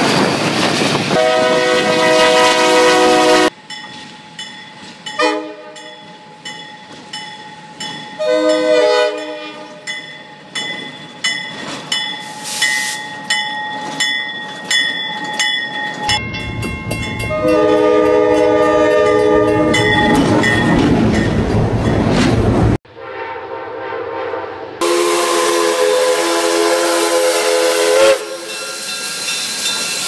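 Diesel locomotive air horns sounding chords of several tones at grade crossings, in spliced clips. A long horn blast opens, and a crossing bell dings steadily with short horn blasts. The heavy rumble of a passing train comes under another blast, and a last long horn chord sounds near the end.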